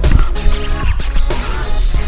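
Background music: sustained chords over a steady, heavy bass.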